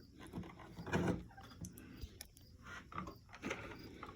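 Irregular light clicks and knocks of a socket wrench on an extension, worked to start a mounting screw.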